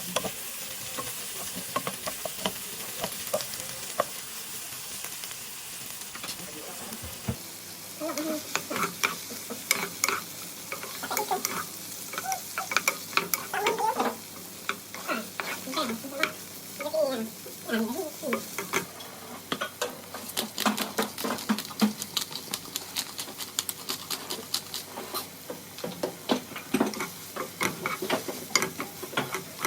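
Food sizzling in a frying pan while it is stirred. After about seven seconds the utensil scrapes and clicks against the pan repeatedly.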